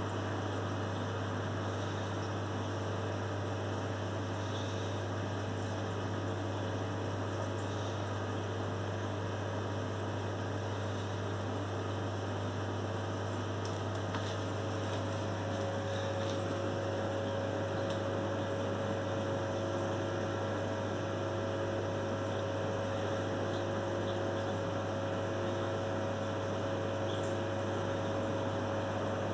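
Reef aquarium equipment running: a steady low hum with a hiss over it, and a faint higher tone joining about halfway through.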